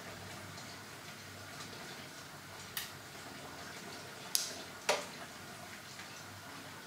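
Steady faint room hiss with three short, sharp clicks: one about three seconds in, then two louder ones half a second apart a little later.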